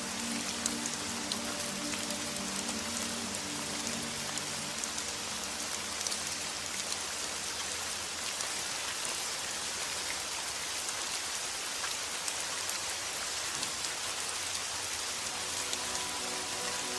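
Steady rain, an even hiss with small individual drops pattering. Soft sustained music tones fade out in the first couple of seconds and come back in near the end.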